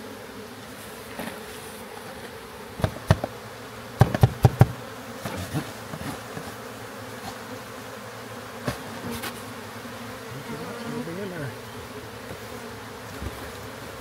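Honey bee swarm buzzing steadily around and inside a cardboard box, with sharp knocks on the box about three seconds in, a quick run of knocks around four seconds, and one more near nine seconds. About eleven seconds in, one buzz rises and falls in pitch.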